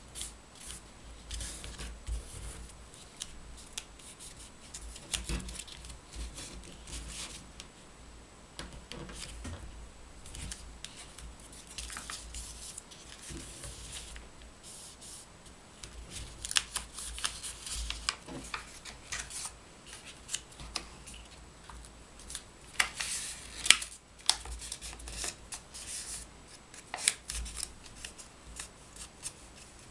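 A sheet of origami paper rustling and crinkling as hands fold it and press creases flat, in irregular short crackles with a few sharper ones.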